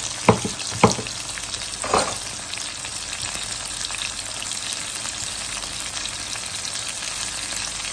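Diced bell peppers, tomato and sliced sausage sizzling steadily in hot oil in a frying pan, with a few sharp knocks in the first two seconds.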